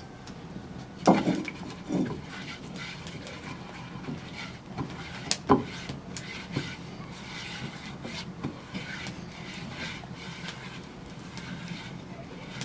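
A hand rubbing olive oil around the inside of an unglazed clay baking dish, with scratchy, slick rubbing sounds. Two knocks come about a second and two seconds in, and a sharp click a little after five seconds.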